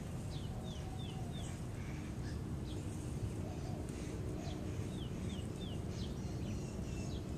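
Wild birds chirping, with runs of three or four quick, high notes that fall in pitch, about half a second in and again near five seconds, over a steady low background rumble.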